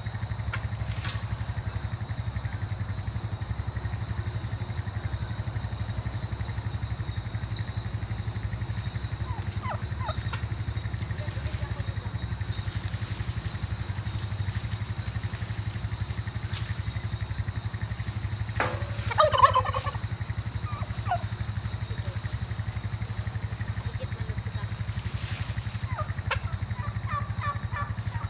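Farm fowl calling a few times, loudest in a short rattling burst about two-thirds of the way in, over a steady low rumble.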